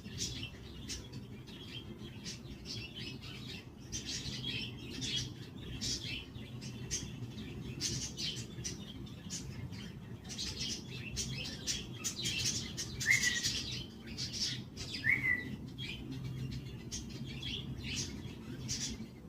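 Budgerigars chattering in a steady stream of short, quick chirps, with two clearer whistled notes past the middle, over a low steady hum.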